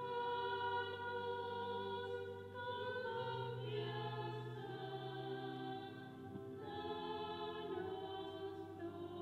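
A slow devotional hymn sung in chorus, with long held chords that change every second or two.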